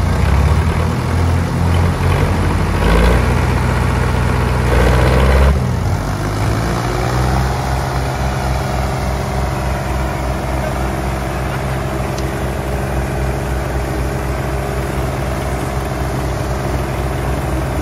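Diesel tractor engines working hard under load in a tug of war, two tractors chained back to back. The engines run loud with repeated surges for about five and a half seconds, then settle to a steadier, lower running as the tractors move off along the road.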